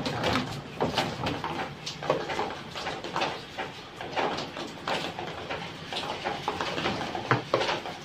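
Irregular plastic knocks, clicks and scrapes as the plastic tub parts of a top-loading washing machine are handled and fitted back together.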